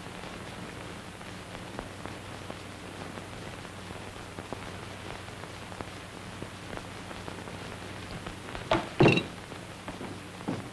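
Steady hiss and faint crackle of an old film soundtrack, with a low hum underneath. A brief louder sound breaks in about nine seconds in.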